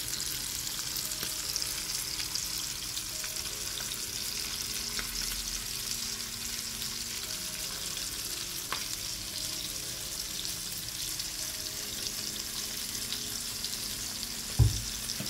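A whole soldier bream frying in melted butter in a ridged grill pan: a steady sizzle with fine crackles. A single knock near the end.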